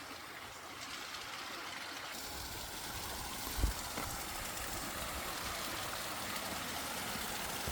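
Steady rushing of a creek splashing over rocks. A low rumble joins about two seconds in, and there is one short knock a little after that.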